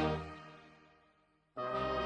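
Processional brass band playing: a long held brass chord fades away to near silence, then a new chord starts abruptly about one and a half seconds in.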